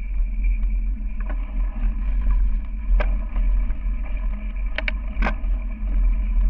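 Wind buffeting and road rumble on an action camera's microphone while riding a mountain bike over a bumpy dirt singletrack: a steady low rumble, with a few sharp knocks and rattles from the bike and camera mount hitting bumps, clustered about three to five and a half seconds in.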